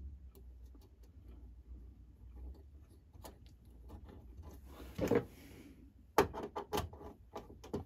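Light clicks and taps of a brass clock movement being handled as its plates are fitted over the wheels and the fastenings started, with a couple of louder knocks about five seconds in and a quick run of sharp clicks near the end.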